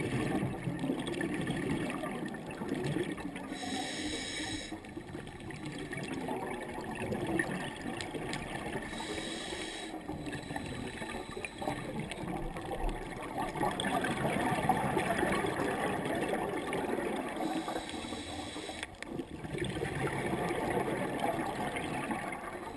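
Underwater sound of scuba breathing through a regulator: bubbling and gurgling of exhaled air, with a short hiss of inhalation three times.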